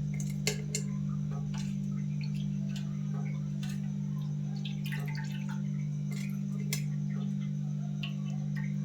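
Steady low hum under scattered light clicks and taps of utensils on a cooking pan.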